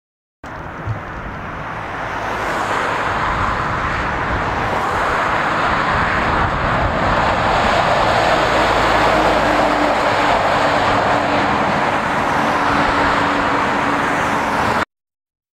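Road traffic: tyre and engine noise from a truck and cars, starting abruptly and building up over the first few seconds, then holding steady until it cuts off sharply. A short low thump comes near the start.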